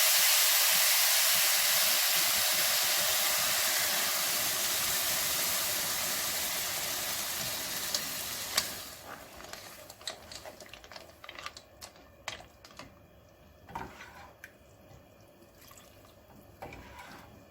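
Fish broth poured into a hot pot of frying rice and seafood: a loud sizzling hiss that slowly fades and cuts off about nine seconds in, followed by a few light clicks and knocks.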